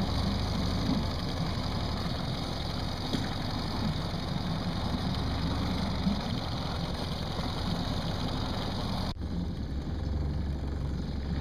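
Boat motor running steadily at trolling speed, a low hum under a hiss of wind and water. The hiss drops away suddenly about nine seconds in while the hum carries on.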